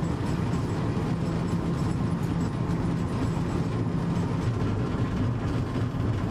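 V36 diesel locomotive under way at low speed: its diesel engine drones steadily, with the running noise of the wheels on the track.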